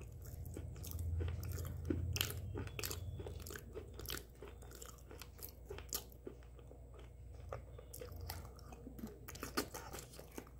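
A person chewing with the mouth closed: irregular soft crunches and mouth clicks.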